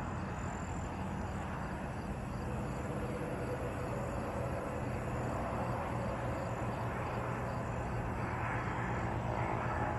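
Steady outdoor night ambience: a low, even hum under a wash of noise, with faint, regular insect chirping high up.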